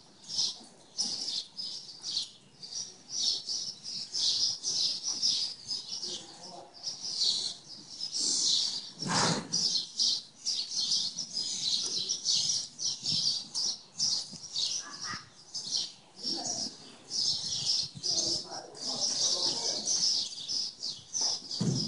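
Small birds chirping in a fast, busy chatter of high, short calls that goes on without a break. One louder, fuller noise comes about nine seconds in.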